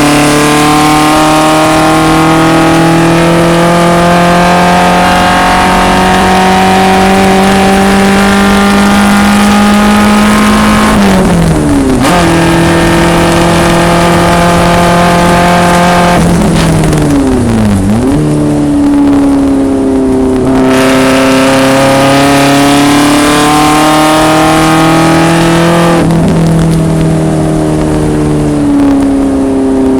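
A 1974 BMW 2002 racecar's four-cylinder engine pulling hard under load, its pitch climbing steadily through the gears. About eleven seconds in, and again around seventeen seconds, the note falls away sharply as the throttle is lifted and the engine drops in revs, then rises again under power.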